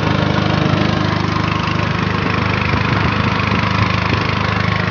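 Small engine running steadily at a low, even speed.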